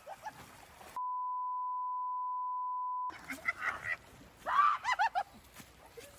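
A censor bleep: one steady beep about two seconds long, starting about a second in, with all other sound cut out while it lasts. After it come a few short, pitched, honk-like cries or yells.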